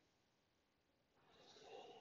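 Near silence: quiet room tone, with a soft breath starting a little over a second in.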